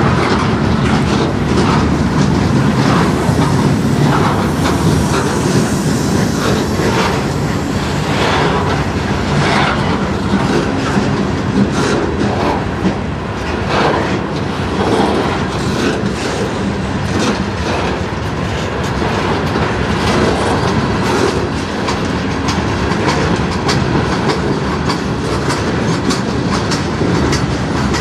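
Freight cars of a passing manifest train rolling by close up: a steady rumble of steel wheels on the rails with repeated clicks and clacks as the wheels cross rail joints.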